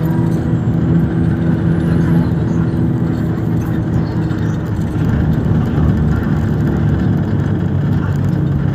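A motor vehicle's engine running steadily, with continuous road and traffic noise.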